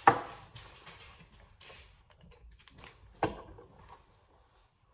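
Light knocks and clicks of small containers being handled and set down on a kitchen counter, the sharpest right at the start and another a little past three seconds in.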